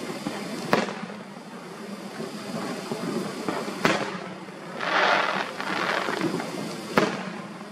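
Aerial firework shells bursting overhead: three sharp booms about three seconds apart, with a dense crackling hiss lasting about a second and a half between the second and third booms.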